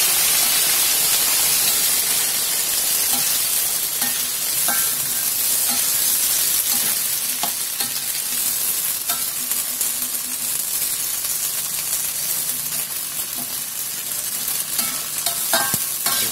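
Hot oil sizzling around a wokful of whole chillies and garlic cloves just dropped in to fry, the hiss loudest at first and slowly easing. A few light taps of the spatula in the wok.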